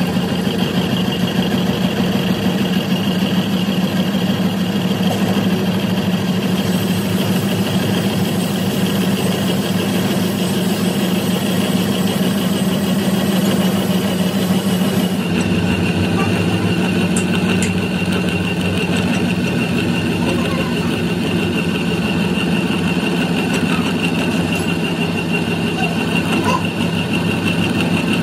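Metal lathe running steadily, turning a steel excavator bucket pin with the cutting tool taking a cut: a continuous motor hum with a high whine. The hum and whine shift slightly in pitch about halfway through.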